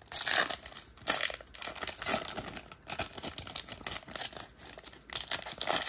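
Plastic wrapping on a baseball-card blaster box or pack crinkling and tearing in irregular crackles as it is ripped open by hand.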